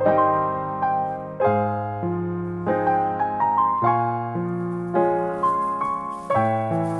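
Background piano music: a gentle melody of struck notes over a bass note that changes every second or so.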